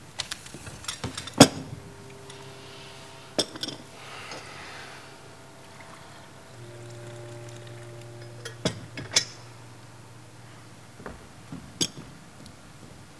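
Tableware on a laid dinner table clinking: glass, crockery and cutlery knocked and set down in scattered sharp clicks, a quick cluster near the start and single clinks later. Soft held notes of underscore music sound beneath.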